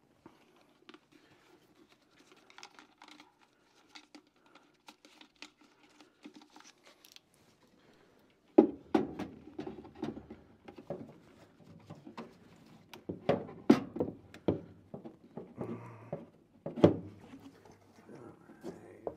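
A furnace draft inducer's blower housing being handled and fitted onto the collector box: light clicks and rustling at first, then from about eight seconds in a string of sharp knocks and clunks as the housing is set in place against the furnace.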